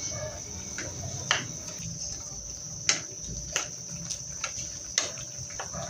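A wooden spatula stirs squid simmering in adobo sauce in a pan, knocking sharply against the pan about five times, over a steady high-pitched whine.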